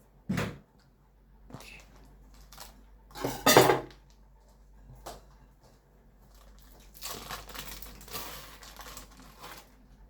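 Kitchen utensils and dishes being handled: a few short knocks and clatters, the loudest about three and a half seconds in, then a couple of seconds of noisy handling about seven seconds in.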